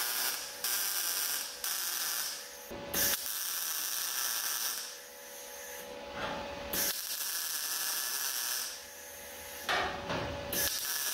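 Arc welder sizzling and crackling as a sheet-steel wheel tub is welded into a pickup bed, in several short runs of one to three seconds with brief pauses between them.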